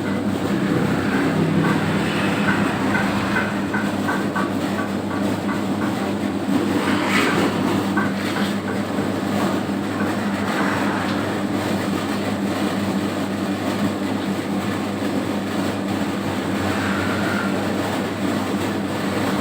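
A home-built 3 kg dough mixer running steadily, its motor and drive giving a continuous mechanical hum. A short run of quick, even ticks comes about three seconds in.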